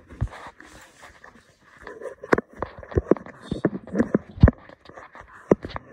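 Irregular sharp metal clicks and knocks from handling a hydraulic hose quick-coupler while fitting a loader hose to the tractor's coupling, coming in a quick run from about two seconds in.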